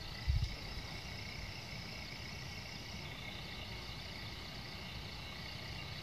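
Faint, steady high chirring of insects in summer grass, over a low steady rumble, with one brief low thump about a third of a second in.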